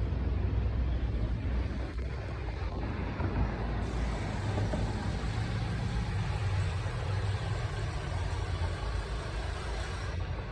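Steady low rumble of road traffic and city noise.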